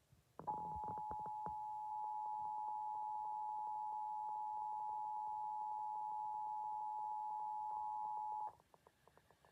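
Emergency Alert System two-tone attention signal: two steady pitches sounding together, starting about half a second in and holding for about eight seconds before cutting off abruptly.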